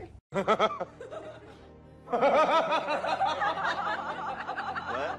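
High-pitched laughter in quick repeated pulses: a short burst about half a second in, then a long unbroken string of giggling from about two seconds in.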